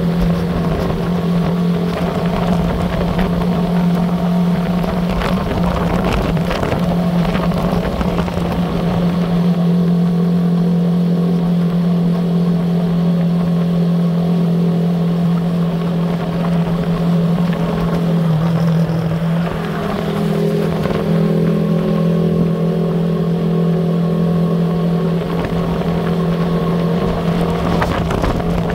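Engine of the camera vehicle pacing the cyclists, running steadily at cruising speed with a constant low hum, mixed with wind and road noise. The engine note sags briefly about two-thirds of the way through, then picks up again.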